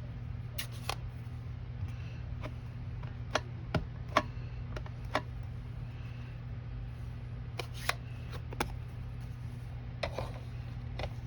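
Scattered light clicks and taps of small craft supplies being handled, such as an ink bottle and a paintbrush on a work table, over a steady low hum.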